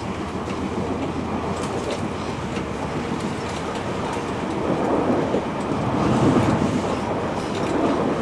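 Siemens Nexas electric multiple unit running, heard from inside the carriage: a steady rumble of wheels on rails that grows louder about five seconds in.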